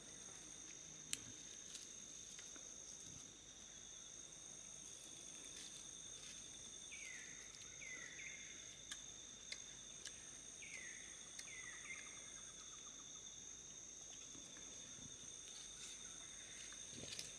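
Faint tropical forest ambience: a steady high-pitched insect drone on two unbroken tones. Near the middle come two short runs of three quick falling chirps from a bird, and there are a few faint sharp clicks, the sharpest about a second in.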